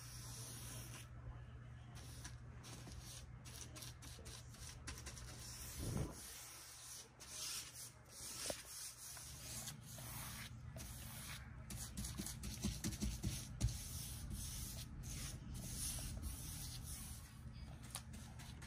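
Short-handled paintbrush laying navy paint onto a kitchen island's painted trim and baseboard: the bristles give a soft, scratchy swish with each quick, irregular stroke, a few scrapes louder than the rest.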